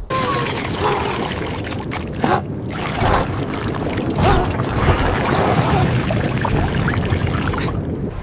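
Liquid pouring steadily with splashing and bubbling, rising in brief surges a few times.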